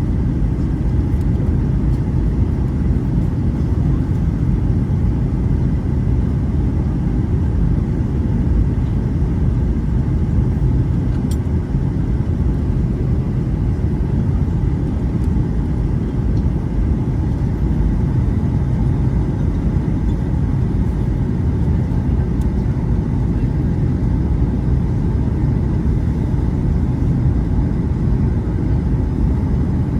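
Steady jet engine and airflow roar heard inside an airliner's passenger cabin during descent, deep and even, with faint steady hum tones above it.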